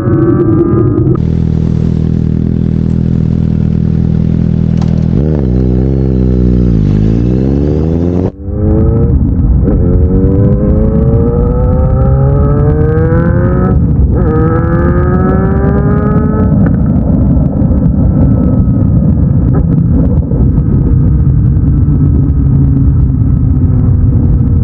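Suzuki GSX-S750's inline-four engine through a Black Widow slip-on exhaust: held at steady revs, then revved up and down. After a cut about eight seconds in, it accelerates in a series of rising pulls, each ending in a sudden drop in revs like a gear change.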